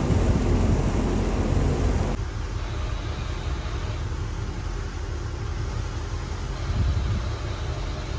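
Wind on the microphone and water noise aboard a moving boat, over a steady low rumble. About two seconds in it drops suddenly to a quieter, even rumble.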